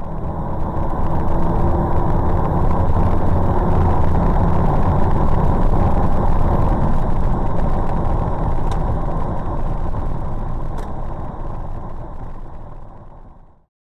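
Truck engine and road noise heard inside the cab while driving, a steady low drone that fades out near the end.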